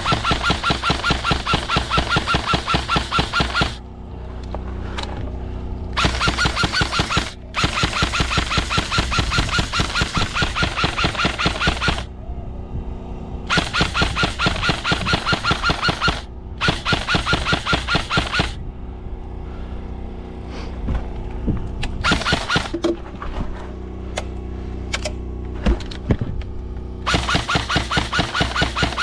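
Airsoft electric gun firing full-auto in long bursts, rapid clacks over a steady motor whine. There are about half a dozen bursts, each lasting one to four seconds, with short pauses between them, plus one brief burst a little past the middle.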